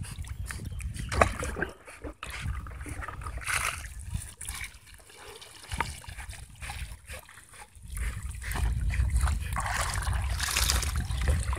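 Water splashing and trickling as a mesh fish net is handled in shallow water, with many small clicks and knocks from the handling. The noise gets louder about eight seconds in.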